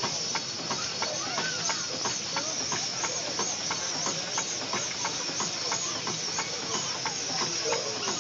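Steam traction engine idling slowly: a steady hiss of steam that swells and fades about twice a second in time with the engine's strokes, with light regular clicks a few times a second.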